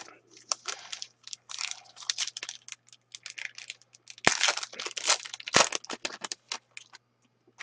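Foil wrapper of a 2011-12 Elite hockey card pack being torn open and crinkled as the cards are pulled out: a run of irregular crackles and tearing, loudest a little past the middle.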